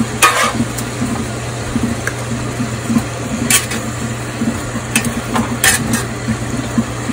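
Ribeye steaks sizzling in butter in a cast-iron skillet while metal tongs turn them, clicking sharply against the pan about five times. A steady low hum runs underneath.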